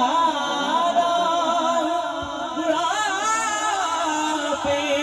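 A boy's solo voice singing a devotional Urdu kalam into a handheld microphone: long held notes with a wavering run about three seconds in.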